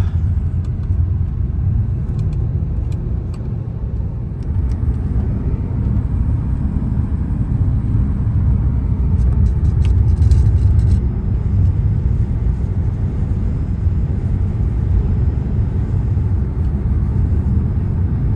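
A car driving: a steady low rumble of engine and road noise, with a few light clicks and knocks about five and ten seconds in.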